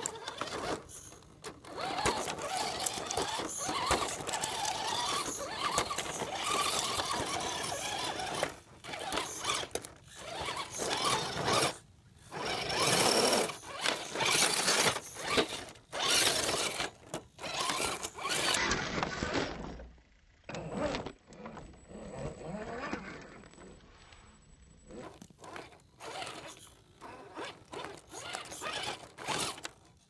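Axial SCX10 Deadbolt RC rock crawler's electric motor and geared drivetrain whining in irregular stop-and-start bursts as the truck crawls over rocks.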